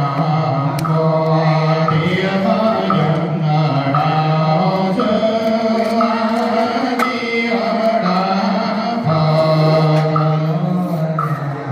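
Buddhist funeral chant by a monk, amplified through a microphone: a slow, melodic recitation in a man's voice on long held notes that step between a few pitches.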